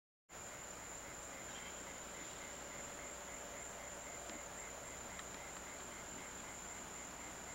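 Insects chirping in the grass: a steady high trill with a softer pulsed chirp about four times a second, faint over steady tape hiss.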